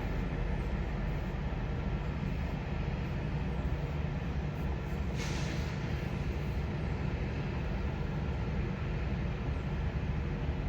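Steady low mechanical hum with no change in level, and one short hiss about five seconds in.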